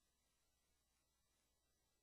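Near silence: only a faint, steady hiss with a low hum.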